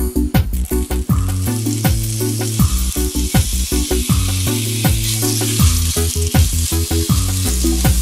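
Chopped pancetta sizzling as it is dropped into a hot cast-iron pot and stirred, beginning to render its fat; the sizzle builds within the first second and keeps on. Background music with a steady bass beat plays underneath.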